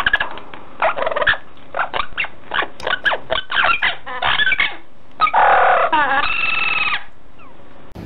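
Rose-ringed parakeet calling: a rapid run of short, harsh chattering calls, then a longer, louder call that ends in a short held note.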